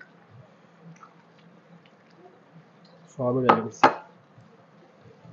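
Faint soft clicks and squelches of fingers mixing rice and curry. A little over three seconds in comes a brief, loud vocal sound from one of the eaters, with two sharp catches in it, but no words.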